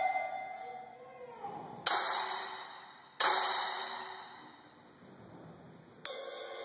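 Drum kit cymbals struck in a sparse passage of a percussion solo: two single crashes about a second and a half apart, each left to ring and fade away. Near the end, quieter ringing cymbal strokes come in.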